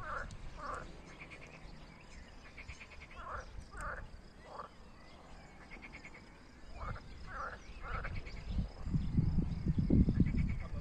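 Frogs croaking from the pond in short calls, two or three close together, repeating every second or so. From about eight seconds in, a low rumble on the microphone grows louder than the frogs.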